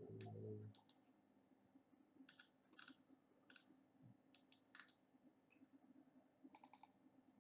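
Faint, scattered computer mouse clicks, with a quick run of several clicks near the end.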